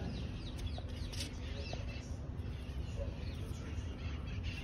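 Small birds chirping, a run of short high chirps in the first two seconds and a few more later, over a steady low background rumble.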